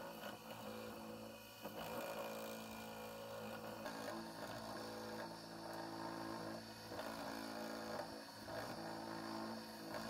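Bench electric motor with a drill chuck on its shaft running steadily, its bit boring holes into a wooden bird-cage hoop; the bit bites into the wood several times over the steady hum of the motor.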